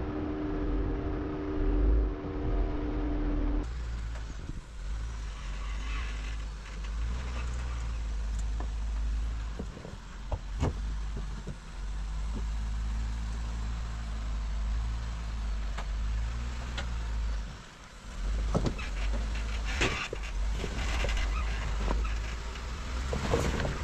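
Jeep Wrangler engine running low and steady as it crawls over rock, with scattered knocks and clunks that get louder near the end. A higher steady hum in the first few seconds cuts off abruptly.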